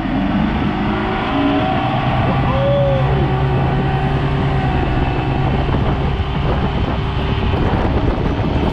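Boat's outboard motor running steadily under way, with a constant rushing noise over it.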